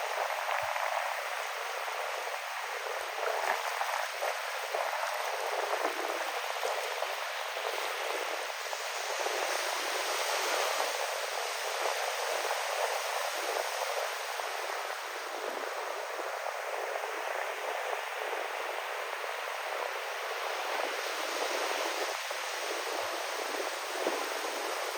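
Ocean waves washing in, with wind: a steady rushing that rises and falls slightly.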